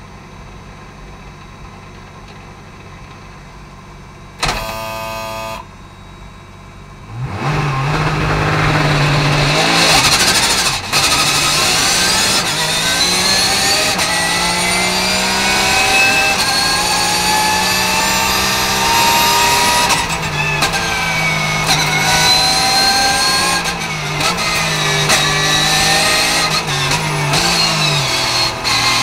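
Porsche 991 GT3 Cup racing car's naturally aspirated flat-six idling, with a short loud burst about four seconds in. At about seven seconds it launches and revs hard through a string of quick upshifts. Near the end it blips down through the gears under braking.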